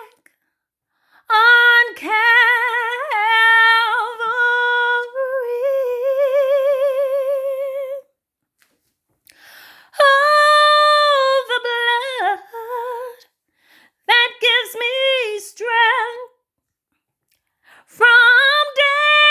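A woman singing a gospel hymn solo and unaccompanied, in long held phrases with a wide vibrato. Three short breaks for breath fall between the phrases.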